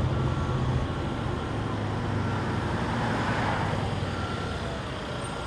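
Heavy truck's diesel engine running with street traffic, a steady low hum that slowly fades.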